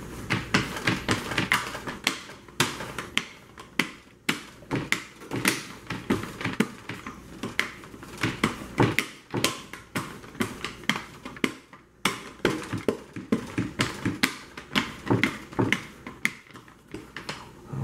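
Rolling pin rolled back and forth over pizza dough on a wooden board, rubbing, with irregular knocks and clacks about two or three a second.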